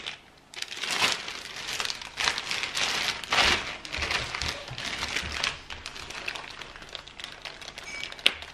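Plastic zip-top bag crinkling and rustling in irregular bursts as a salmon fillet is slid into it and the bag is handled, with one sharp click near the end.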